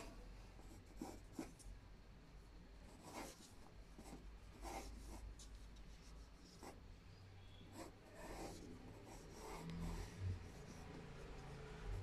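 Faint scratching of a B-series graphite pencil sketching light strokes on a sheet of paper taped to a board, in scattered short strokes.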